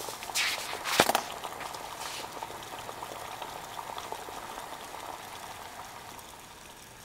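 Water at a full boil in a 22 oz ultralight cook pot over an aluminum bottle alcohol stove, a steady bubbling that slowly fades as the stove's jets run out of fuel near the end. A sharp click about a second in.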